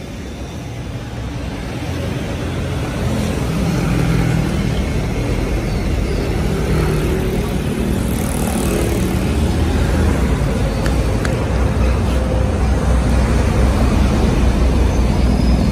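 A 100 V single-phase, 620 W bench grinder's motor running with a steady low hum. It grows louder over the first few seconds, then holds steady.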